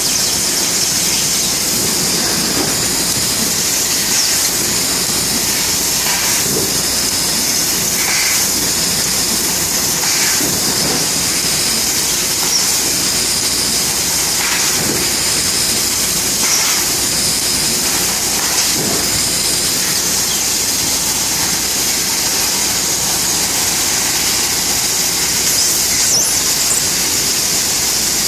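Bystronic CNC laser cutting machine running: a loud, steady high-pitched hiss and squeal, with faint short chirps scattered through it.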